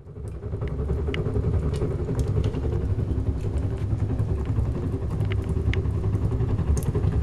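Household stove's firebox humming and puffing hard with a strong draught: a steady low rumble that flutters and pulses, with scattered sharp ticks.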